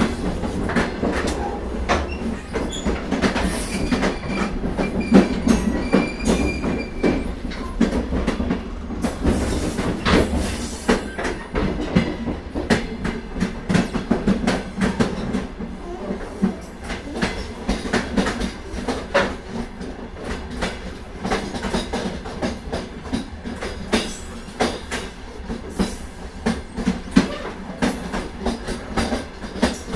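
Old Soviet train's wagon wheels running on the track: a steady low rumble with irregular clacks and knocks over the rail joints, and a faint thin squeal a few seconds in.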